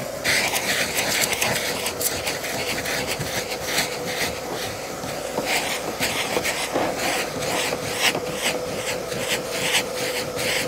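Vacuum cleaner running with a steady whining hum while its nozzle is scrubbed back and forth over a car's carpeted floor mat, giving frequent short scratchy rasps and clicks as dirt is sucked out of the pile.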